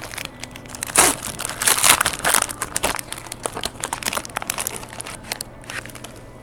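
Packaging of a trading-card box crinkling and crackling as it is opened and handled, in a quick run of short crackles with louder ones about one and two seconds in, thinning out in the second half.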